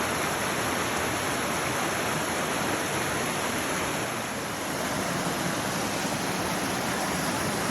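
Steady rush of water from a small mountain stream, an even, unbroken sound.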